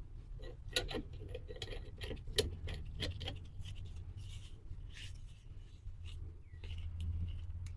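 Pipe fittings being handled: a quick run of light clicks and scrapes in the first few seconds, then softer rubbing, over a steady low rumble.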